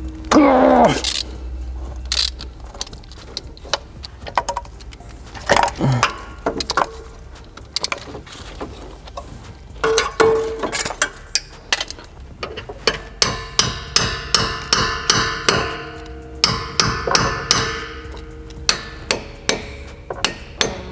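Hammer blows on steel while the old drive axle is knocked free of the wheel hub. Scattered strikes come at first, then a steady run of about two ringing blows a second in the second half. A brief falling squeal sounds near the start.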